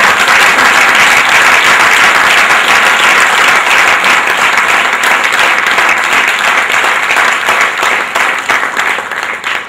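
Audience applauding loudly, dense hand clapping that dies away quickly near the end.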